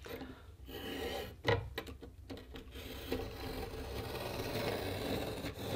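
Utility knife blade scoring the paper face of a sheet of drywall along a metal straight edge: a scratchy rasp that becomes steady in the second half, after some softer rubbing and a light tap.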